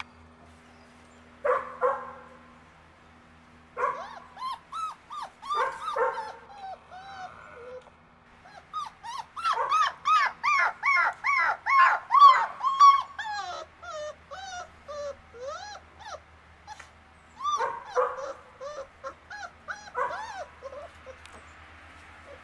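Puppies whining and yelping in bouts of short, high, arching calls with pauses between. The quickest and loudest run of yelps comes about ten to thirteen seconds in.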